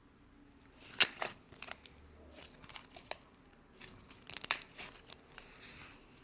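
Butter slime being squished and pulled by hand, giving a string of sharp sticky pops and crackles. The pops are loudest about a second in and again near four and a half seconds.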